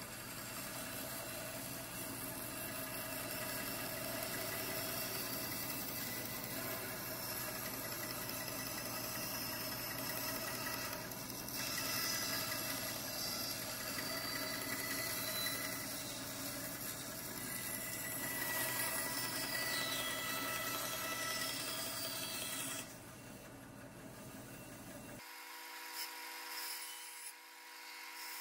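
Bandsaw running and cutting through an oak board along a curved line, a steady machine hum with the rasp of the blade in the wood. Now and then there is a high whine that slides downward in pitch. Near the end the cutting noise drops away, leaving a quieter, thinner hum.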